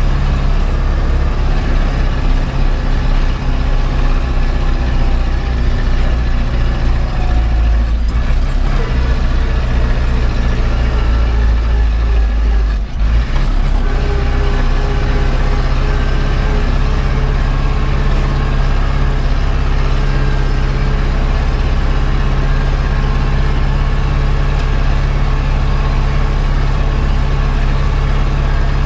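Zetor 7011 tractor's four-cylinder diesel engine running steadily under way, heard from inside the cab. There is a brief dip in level about thirteen seconds in.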